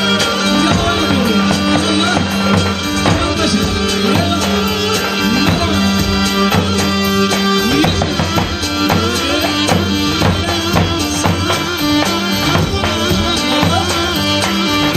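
Live Turkish folk dance music: a davul drum beating a steady rhythm under a held, droning melody line.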